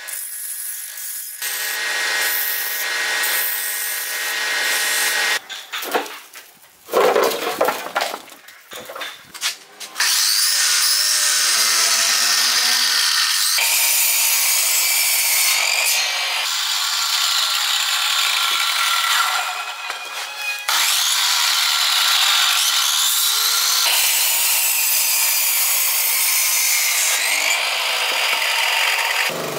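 An electric miter saw cutting through green bamboo stalks one after another, its motor whine sagging as the blade bites and climbing again as each cut finishes. Before that, a wood lathe spins a bamboo section while a hand tool scrapes it, a steady noisy hum, with a few short loud bursts in between.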